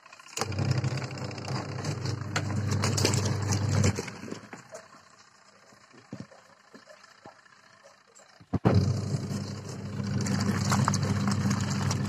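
Top-loading washing machine agitating its wash: the motor hums with water sloshing through sudsy laundry for about three and a half seconds. It stops for about four seconds, then runs again for another three and a half seconds, the stop-and-go rhythm of the wash stroke.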